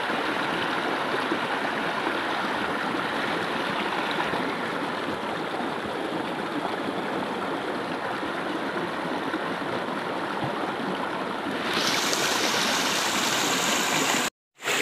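Shallow rocky stream rushing and gurgling over stones, steady throughout; about twelve seconds in the water sound turns louder and brighter, then cuts out for a moment just before the end.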